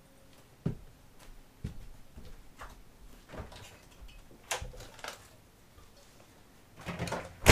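Scattered knocks and clunks of someone rummaging through cabinets out of view, spaced a second or so apart, with the loudest knock right at the end.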